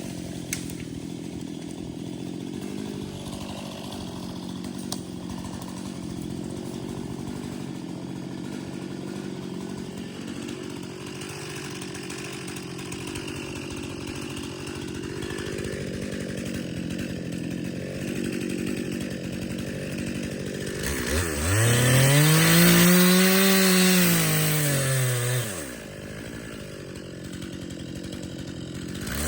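Two-stroke chainsaw running steadily, then revving up to a high, loud pitch about 21 seconds in, holding it for a few seconds and dropping back down.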